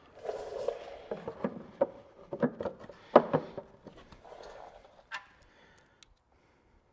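Knocks and clunks of parts being handled and set in place at a Jeep's rear bumper, with a few footsteps: the tire carrier is put down and the bumper's corner cover piece is fitted back on. About seven irregular knocks, the loudest around three seconds in, ending about five seconds in.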